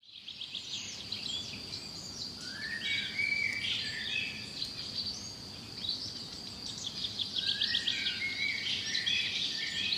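Small caged birds, finches, chirping and calling over one another in quick short notes and trills, above a steady high-pitched whine.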